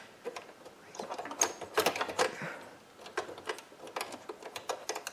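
Irregular clicks and taps of a hard drive housing being handled and fitted into a desktop computer case, with the cables being pushed down.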